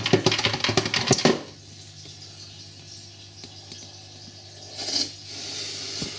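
Handheld camera being handled and repositioned: about a second and a half of rapid clicks and knocks, then a low steady hum with a short breathy sound about five seconds in.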